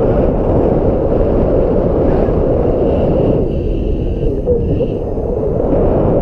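Strong wind buffeting the microphone: a loud, uneven rumble with no let-up.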